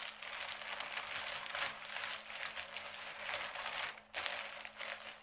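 Food packaging crinkling and rustling as it is handled, in uneven swells with a short pause about four seconds in, over a faint steady hum.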